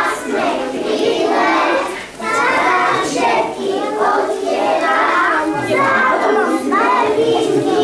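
A group of young children singing together in unison, phrase after phrase with brief breaths between.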